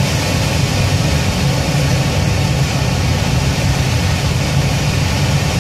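Steady rush of airflow around the cockpit and canopy of an ASK-21 glider in flight, with a strong, unsteady low rumble under it.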